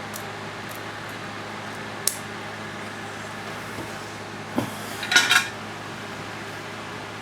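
Small metal tools or parts clinking on a workbench: a light tick about two seconds in, then a short cluster of ringing metallic clinks about five seconds in, over a steady fan hum.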